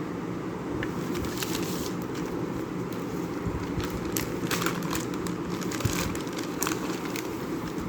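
Plastic packaging crinkling and crackling in a series of short, irregular bursts as it is handled and unwrapped, over a steady low hum.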